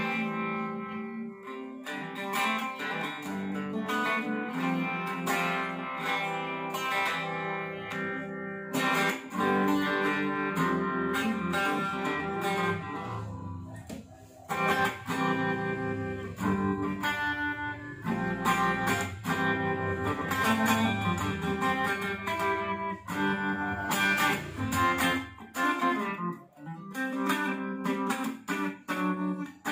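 Japanese-made Ibanez RG570 electric guitar played through a small combo amp, with single-note lines and chords. About halfway through the sound dips briefly while the amp knobs are adjusted, then comes back louder.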